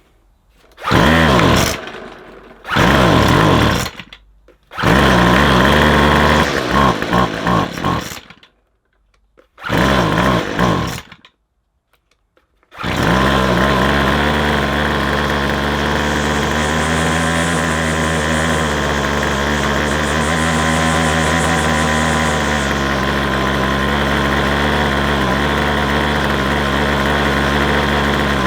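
McCulloch 250C XL strimmer's small two-stroke engine firing in four short bursts that die away, then catching about 13 seconds in and running steadily. Its owner suspects a partly blocked carburettor jet is starving it of fuel.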